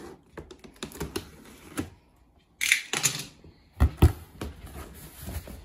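Cardboard box being opened: a safety box cutter slitting the tape along the seam with quick light clicks, then a brief scraping rustle of cardboard flaps and two dull thumps about four seconds in.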